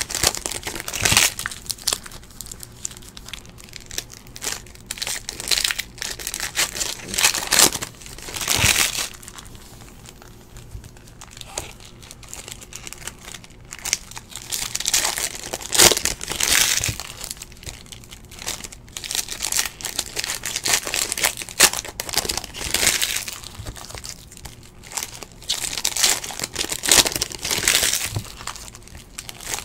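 Foil wrappers of basketball trading card packs crinkling and tearing as they are ripped open by hand, in irregular bursts.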